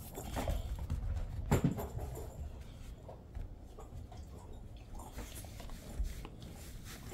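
Jindo dog moving about on a carpeted floor while playing with a rubber ball toy: soft paw steps and scuffs with a few short knocks, the loudest about a second and a half in.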